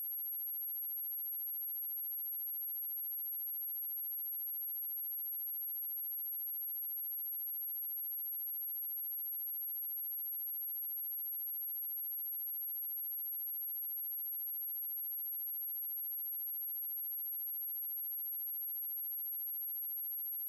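A pure electronic sine-wave test tone at 11543 Hz, a very high steady whistle held without change. It is played to test speakers and to shake water and dust out of a speaker.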